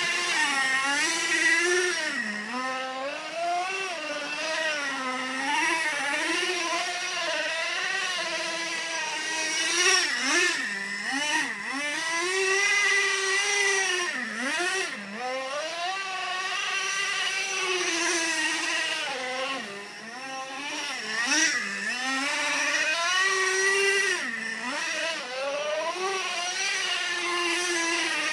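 A radio-controlled car's motor revving up and down continually as it is throttled through drifts, its pitch rising and falling every second or two.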